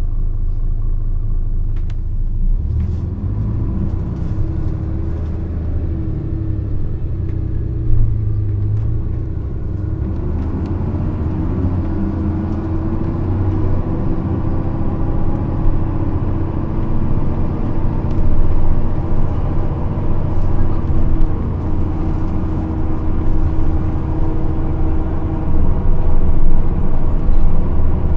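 Nissan Diesel KC-RM211GSN bus's FE6E diesel engine and Jatco three-speed automatic, running with a heavy rumble, then rising in pitch for a few seconds as the bus accelerates before settling into a steady tone. This bus is known for an abnormal, ferocious running noise.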